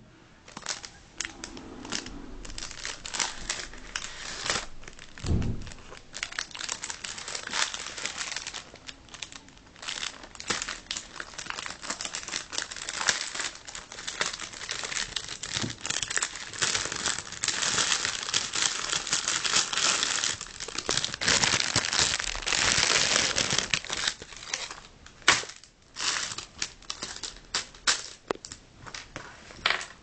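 Crinkling and rustling handling noise as a sports bag is unpacked and handled, with many irregular small clicks. There is a dull thump about five seconds in, and a single sharp click stands out near the end.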